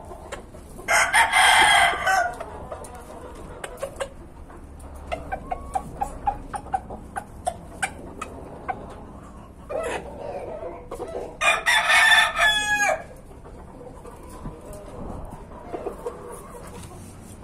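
Rooster crowing twice, about a second in and again about twelve seconds in, each crow lasting a second or more, the second one falling in pitch at its end. Short clucks come in between.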